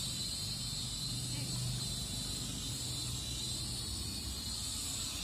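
Syma X5UW quadcopter's small motors and propellers whirring as it flies at a distance: a steady high whine over a low hum.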